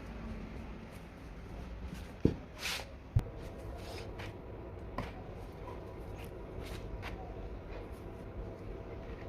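Hands handling objects: light rustling and small clicks, with two sharp knocks about a second apart.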